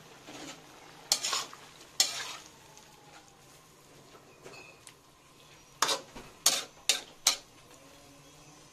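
Metal spatula scraping and knocking against a wok while stirring frying pork pieces. There are two strokes early, then four quick ones about six to seven seconds in.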